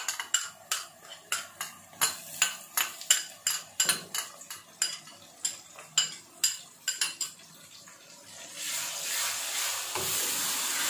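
Repeated sharp clinks and taps of utensils against a steel kadai as ginger-garlic paste is spooned in over frying onions. After a brief lull, about three-quarters of the way in, a steady sizzle of onions and paste frying in hot oil takes over as they are stirred.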